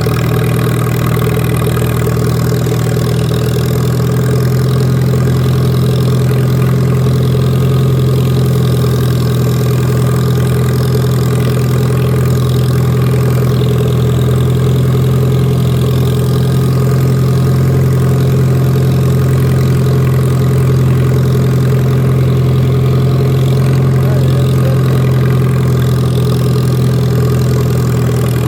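Lawn mower engine running steadily at a constant speed while cutting grass, loud and even throughout.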